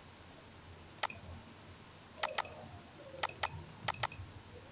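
Computer mouse clicking: a single click about a second in, then three quick pairs of clicks.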